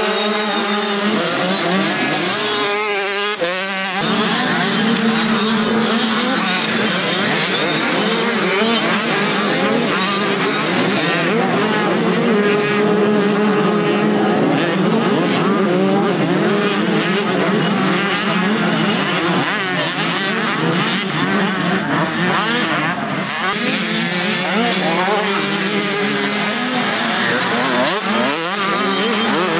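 Several motocross bike engines racing on a track, their pitch rising and falling over and over as riders work the throttle and shift gears, with more than one bike often heard at once.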